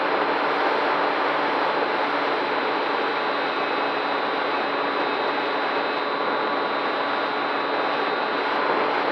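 An FPV quadcopter's motors and propellers giving a steady whirring rush, heard from the drone itself, with a faint high tone above it.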